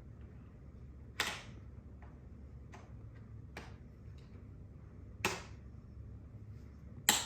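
Sharp plastic clicks and snaps as a leg is fitted onto a jumping-spider decoration: three louder snaps, about a second in, past five seconds and near the end, with a couple of fainter ticks between.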